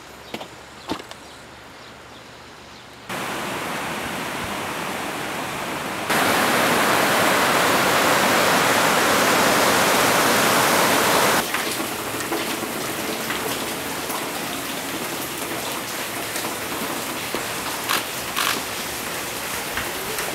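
Rushing water of a swollen, muddy flood river, a loud steady rush that is strongest through the middle of the stretch. Before it there are a few light knocks over a quieter background. After it comes a softer steady hiss with occasional knocks.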